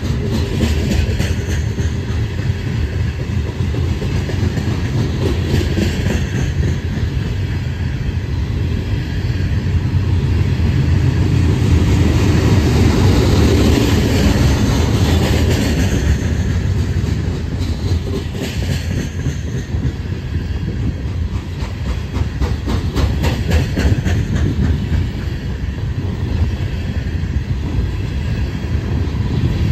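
Loaded coal hopper cars of a freight train rolling past on steel rails: a steady heavy rumble with repeated clicking of wheels over rail joints, a little louder in the middle.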